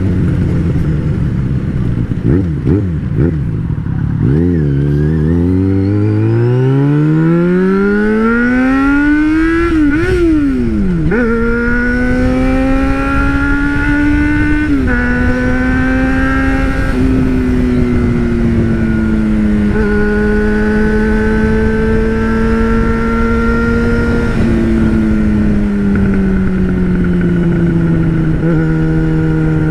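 Yamaha XJ6 600cc inline-four motorcycle engine on the move: a few short throttle blips at low revs, then a long climb in revs as it accelerates hard, a quick gear change about ten seconds in, and then steady cruising with a few small drops in pitch as the rider shifts or eases off the throttle.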